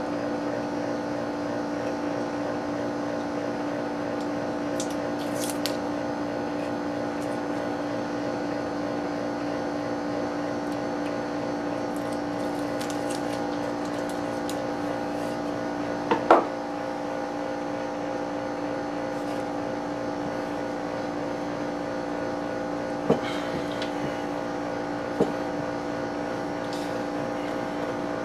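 Steady machine hum with several fixed tones, with a few sharp knocks over it: the loudest about sixteen seconds in, two smaller ones later.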